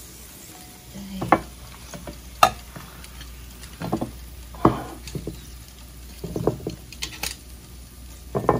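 Metal tongs clinking and knocking against a wire oven rack and a platter as pieces of grilled pork rib are lifted and set down: a string of sharp clicks and knocks about a second apart.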